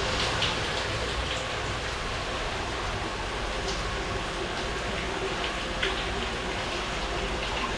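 Hot spring water running in a steady hiss, with a few faint drips or pops scattered through it.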